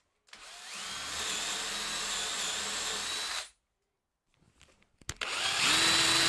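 Cordless drill boring holes into a wooden frame for threaded inserts. The motor spins up to a steady whine and stops sharply about three and a half seconds in; after a short silence and a click, it starts on the next hole near the end.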